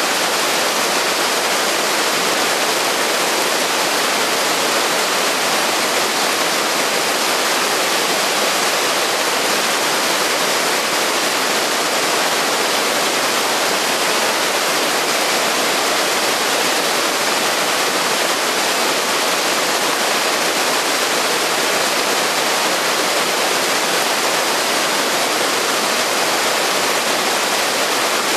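A thin waterfall splashing down onto boulders close by, over a rocky mountain stream rushing below, making a steady, unbroken hiss of falling and running water.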